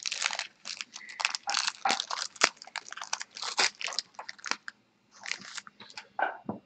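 A 2015 Bowman baseball card pack wrapper crinkling in the hands as it is opened: a dense, irregular run of crackles that eases briefly about five seconds in.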